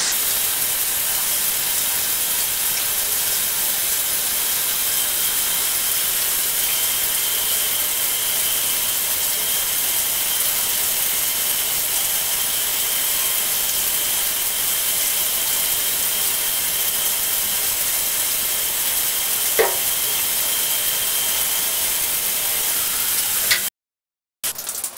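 Hot shower running: water spraying in a steady hiss, heard from inside the enclosed, echoing shower stall. A single short knock sounds about 20 seconds in, and the sound cuts off abruptly shortly before the end.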